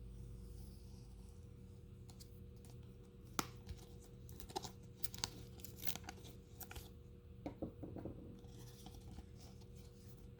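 Sticky tape being peeled and torn off a Digimon Dim card's package, with scattered small clicks and crinkles of the packaging; faint throughout.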